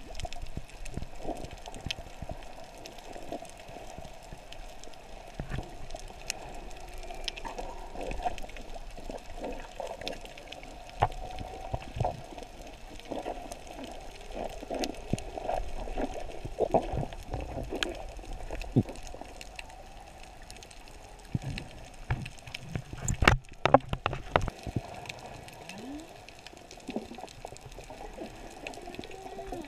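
Underwater sound heard through an action camera's housing: a steady muffled watery hum with many scattered clicks and crackles, a few faint wavering tones, and one sharp knock about 23 seconds in.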